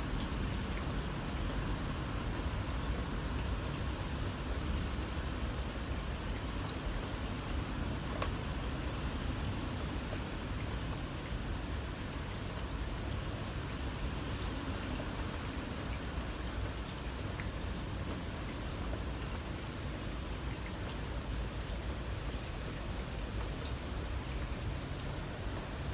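An insect chirping in a steady, rapid, even run of high-pitched pulses, over a constant low rumble of background noise.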